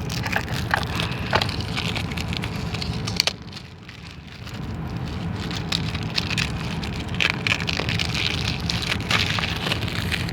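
CD packaging being handled and opened by hand: crackling, crinkling plastic with scattered sharp clicks, briefly quieter a few seconds in.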